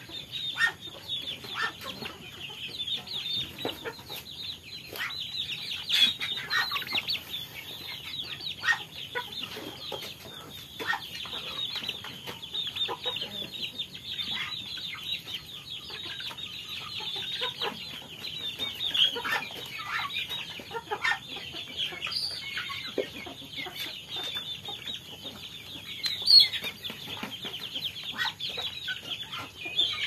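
A flock of young chickens clucking and peeping continuously while they peck at feed, with many short sharp taps mixed in.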